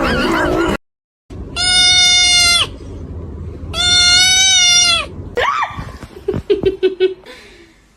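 An animal giving two long, loud, drawn-out calls of about a second each, followed by softer clicks and a short falling cry near the end.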